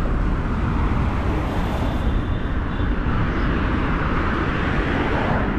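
Steady street traffic noise of passing motor vehicles.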